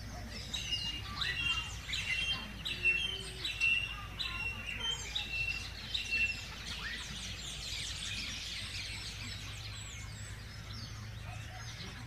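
Birdsong: a short phrase, a quick falling note then a level whistle, repeated about twice a second for some six seconds, then fainter mixed chirping.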